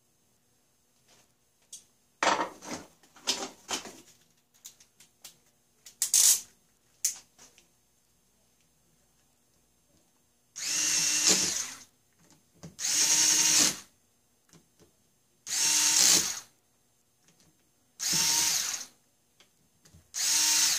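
Cordless electric screwdriver driving small stainless machine screws into a model steam engine's cylinder head, in five short runs of a second or so each in the second half. Before that come small clicks and rattles of hand tools and parts.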